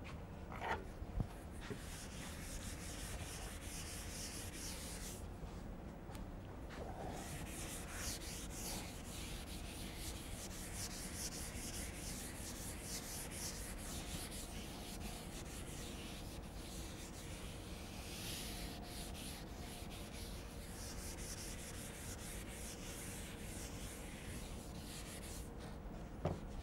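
Blackboard being wiped with an eraser: faint, steady rubbing in many short strokes, with a brief pause about five seconds in and a light knock near the end.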